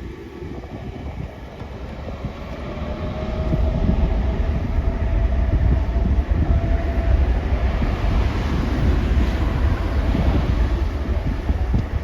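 ZIPAIR Boeing 787 jet airliner's engines running as it passes low overhead, the deep roar swelling about three seconds in and staying loud, with a faint whine that rises slowly in pitch.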